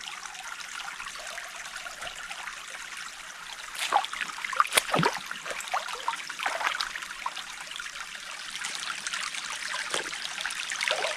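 A small creek flowing while a collapsible Sawyer squeeze water bag is filled in it, with a few sharp splashes about four to five seconds in.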